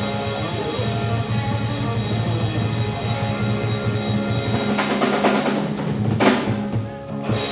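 Live rock band with electric guitar and bass holding notes while the drummer plays a busy roll on the kit, with several loud cymbal crashes in the second half, typical of a song's closing build.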